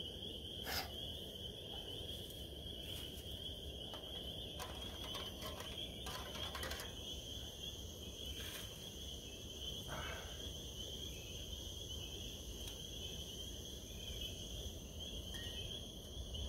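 Liquid-fuel backpacking stove burning steadily after its priming burn, a low even rush, under a steady high-pitched chirping chorus, with a few faint clicks.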